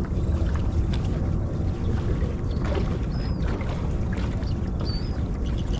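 Steady low rumble of wind on the microphone and water moving around a small fishing boat, with a few faint clicks and two short high chirps.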